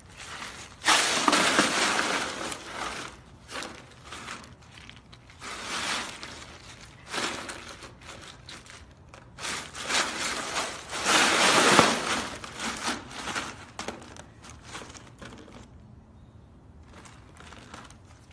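Ice cubes crunching and clattering under a husky as it rolls and wriggles in a plastic pool full of ice. It comes in several bursts, the loudest about eleven seconds in, and thins to scattered crackles near the end.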